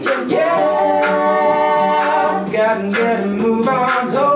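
Mixed male and female a cappella group singing in close harmony, holding a long chord through the first half before the parts move again.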